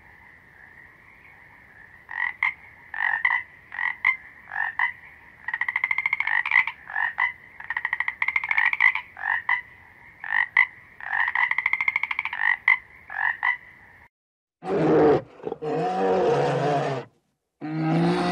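Frogs croaking: groups of short, rapid pulsed croaks and rattling trills over a steady high-pitched chorus, starting about two seconds in. About three-quarters of the way through, three loud, lower-pitched calls from a larger animal take over.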